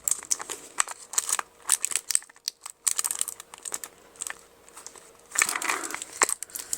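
Plastic packaging crinkling and crackling as it is handled, in short irregular crackles, with a denser burst a little before the end.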